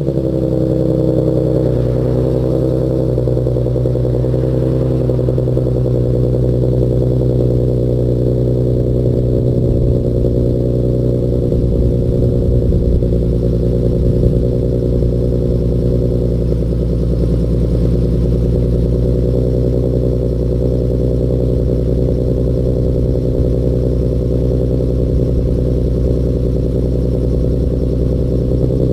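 Infiniti Q50S's 3.7-litre VQ37VHR V6 idling through a Rev9 Flowmaxx axle-back exhaust with resonated test pipes, just after starting: the idle settles slightly in the first couple of seconds, then holds a steady, deep exhaust note.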